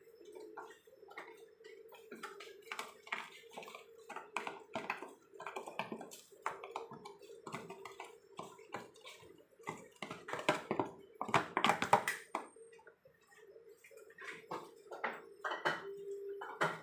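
A spoon or spatula clattering and scraping in a cooking pot, in quick irregular knocks that get loudest about two-thirds of the way through, over a steady low hum.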